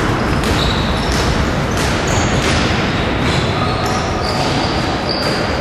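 Basketball game on a wooden gym floor: a ball bouncing and players' feet knocking and sneakers squeaking briefly on the floor, echoing in the hall.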